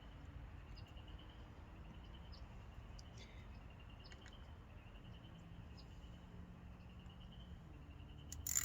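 Faint small clicks and taps of carburetor parts being handled and a screw being driven back in, over a low steady hum, with a short loud noisy burst near the end.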